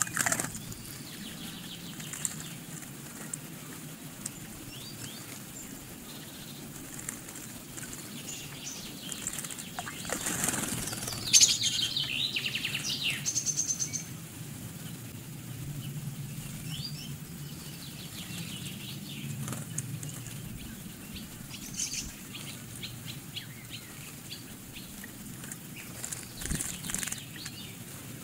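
Great tits bathing in a shallow pond, fluttering their wings in the water in bouts of splashing, the longest and loudest about halfway through. A few short high chirps are heard between the bouts.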